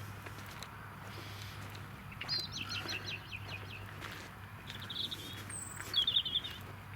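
Small songbirds singing: a quick run of high chirps about two seconds in, then two short twittering phrases near the end, over a faint steady low hum.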